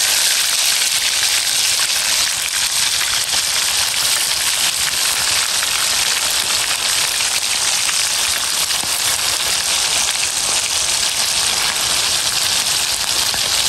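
Hot oil sizzling steadily as pieces of tekukur (spotted dove) deep-fry, a constant hiss with fine crackling.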